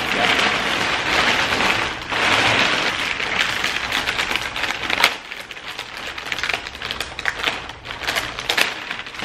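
Heavy plastic shopping bag rustling and crinkling as it is handled and pulled open, dense at first and thinning to scattered crackles and clicks of plastic wrapping in the second half.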